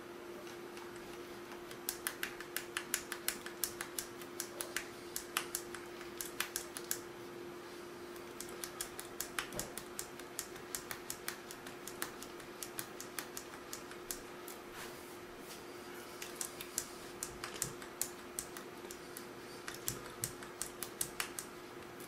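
A new UK three-pin plug wiggled and worked in and out of a new plastic wall socket: its pins and plastic body click and rattle in quick runs of sharp clicks, in four spells with short pauses between. A faint steady hum lies underneath.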